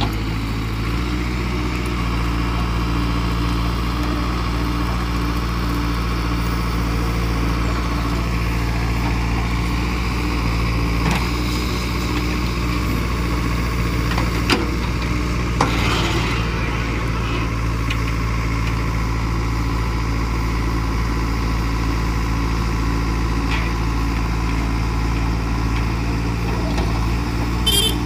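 JCB 3DX backhoe loader's diesel engine running steadily at a constant pitch while the backhoe digs. A few sharp knocks come around the middle, from the bucket working the soil.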